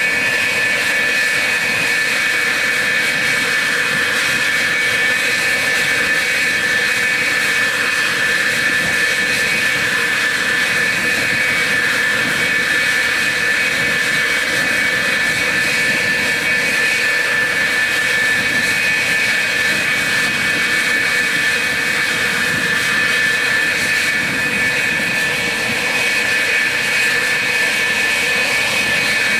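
F-4F Phantom II's J79 turbojet engines running at ground idle: a steady high whine over a rushing hiss.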